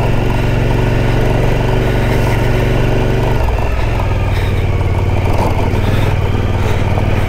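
Adventure motorcycle engine running at low speed on a rough dirt track, its note shifting about halfway through as the throttle or gear changes.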